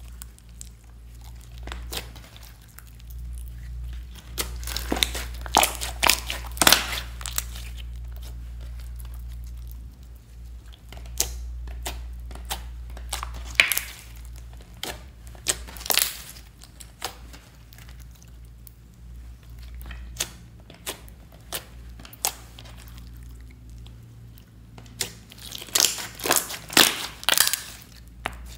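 Hands squishing, stretching and pressing a large glossy glitter slime with small beads mixed in: irregular sticky clicks and crackling pops that come in clusters, over a faint low hum.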